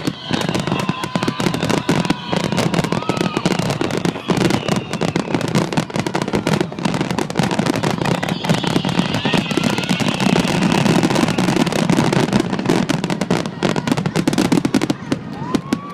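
Fireworks finale barrage: a dense, continuous run of bangs and crackles with no pause between them, with faint whistling tones sliding in pitch among them.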